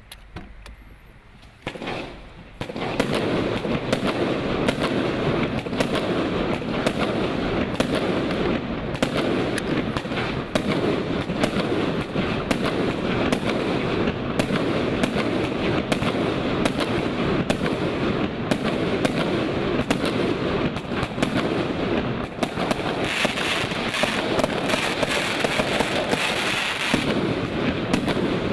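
A 116-shot Category F3 consumer fireworks cake firing. It goes off about two seconds in, then fires shot after shot in quick succession: a dense run of sharp reports over continuous hiss and crackle from lifting and bursting effects.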